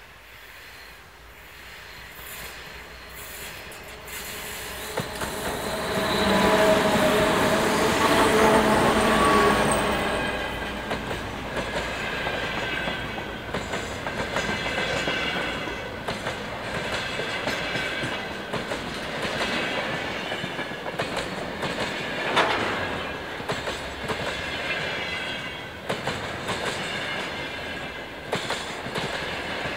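Two-section 2M62 diesel locomotive with 2D49 engines approaching and passing at about 35 km/h, its engine sound building to the loudest point as it goes by. A long train of empty container flatcars then rolls past with a steady clickety-clack of wheels over rail joints and high-pitched wheel squeal.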